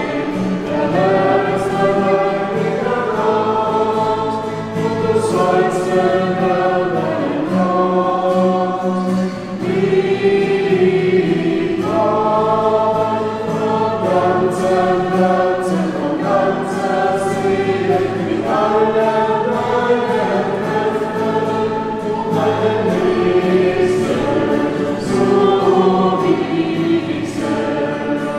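A choir singing a slow hymn in several voice parts, held chords in phrases with short breaks between them.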